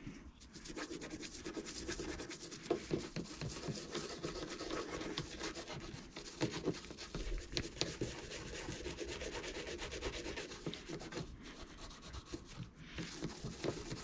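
Toothbrush scrubbing a small Brembo brake caliper hardware part, wet from a soak in white spirit, in quick continuous back-and-forth strokes to lift the dirt and grime. There is a brief pause near the end.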